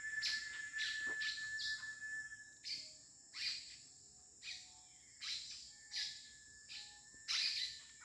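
Small birds chirping in short, sharp calls, about one every half second to second, over a steady high insect drone of cicadas.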